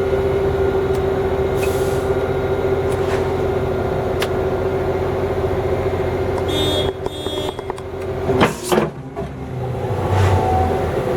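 Heavy diesel truck machinery running with a steady whine; about seven seconds in it drops off, dips and swings in pitch near eight and a half seconds, then picks back up.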